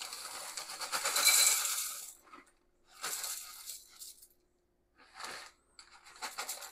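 Kitchen handling noises: a noisy rush lasting about two seconds, then a few short rattles and clinks with quiet gaps between them.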